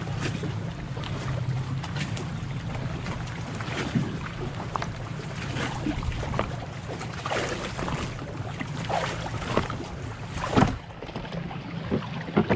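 Sea-Doo FishPro personal watercraft idling with a steady low hum, with irregular knocks and splashes throughout and a louder knock a little past two-thirds of the way through.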